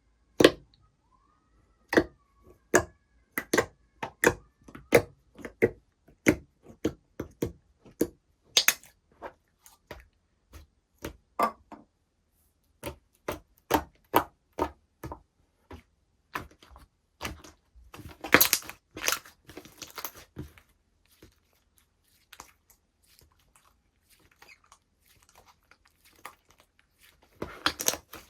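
Slime being pressed and stretched by hand, giving sharp pops and clicks about one or two a second, with a denser crackling run about two-thirds through and again near the end.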